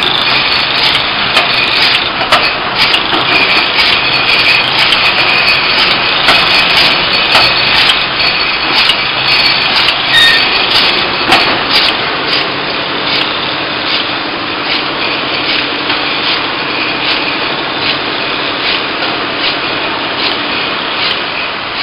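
Rotary bottled-water rinsing, filling and capping machine running: a steady mechanical din full of rapid clicking and clattering from the bottles and moving parts. About halfway through the clatter thins out, leaving a steadier machine hum.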